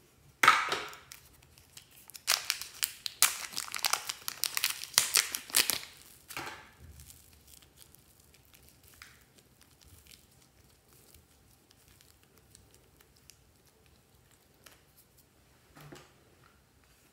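Thin plastic packet crinkling and tearing as it is handled and opened, dense crackling for about the first six seconds, then only faint handling sounds.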